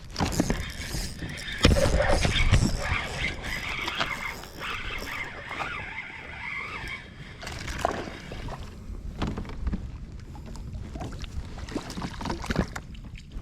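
Water splashing and knocks against a plastic kayak as a hooked small bass is fought and landed, with the loudest hits about two seconds in.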